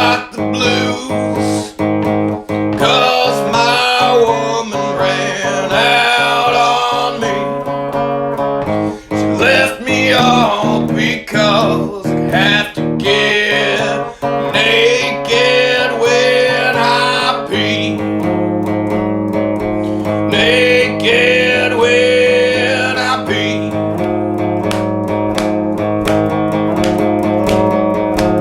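A song with guitar accompaniment and a singing voice; the voice drops out about 24 seconds in, leaving the guitar playing.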